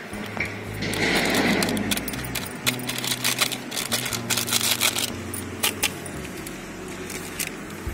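Plastic masala packet crinkling as it is squeezed and shaken to empty the spice powder into a bowl, with a brief rush about a second in and then a quick run of sharp crackles.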